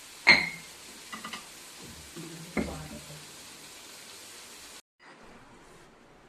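A metal cooking utensil clanks against a cooking pot twice, each strike ringing briefly, with a few lighter clicks between, over a steady hiss that cuts off about five seconds in.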